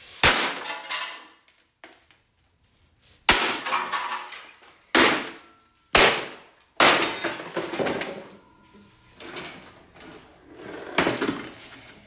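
Sledgehammer smashing a coffee maker: five heavy blows, the first just after the start, then about three, five, six and seven seconds in, each with a short clatter of breaking parts. Quieter knocks and rattles follow.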